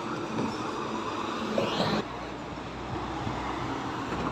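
Highway traffic passing on a toll road: a steady rush of tyres and engines as a coach and trucks go by. A short rising whine comes about a second and a half in, and the noise drops suddenly at about two seconds.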